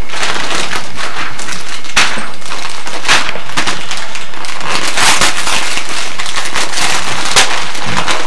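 Gift wrapping paper being torn and crinkled close to the microphone: a dense run of crackles and sharp rips.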